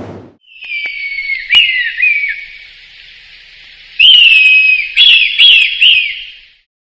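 A high-pitched whistle held for about two seconds and ending in short downward-dipping notes, then a louder whistle about four seconds in that breaks into three quick falling notes. A few sharp clicks sit among them.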